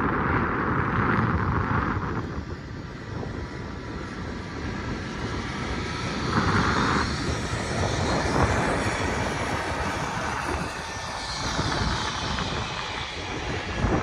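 Steady low rumble and rushing noise of a moving gondola cable car, with a hissing swell about six seconds in and faint rising and falling high whines later on.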